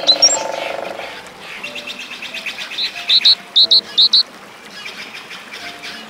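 Eurasian blue tit calling: short, high notes, mostly in quick pairs about three to four seconds in and once more near the end, with a pulsed sound in the first second. Faint background music runs underneath.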